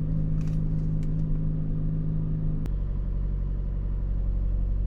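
Jeep Renegade 2.4 inline four-cylinder engine idling steadily just after starting. About two and a half seconds in there is a click and the idle drops to a deeper, steadier note. It is running evenly, with no misfires registering.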